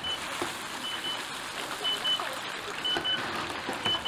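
An electronic alarm beeping in high double beeps, one pair about every second, over a steady hiss of background noise.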